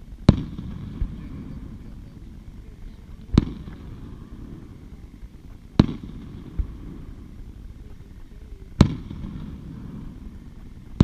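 Aerial firework shells bursting at a distance. Four sharp booms come about two and a half to three seconds apart, each trailed by a low rolling rumble, with a couple of fainter thuds between them.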